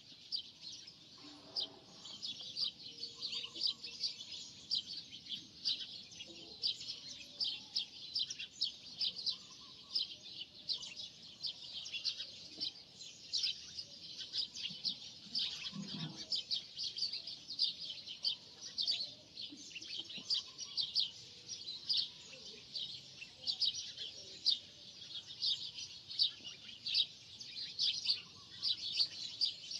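Small birds chirping: a busy, continuous stream of high, quick chirps, several a second.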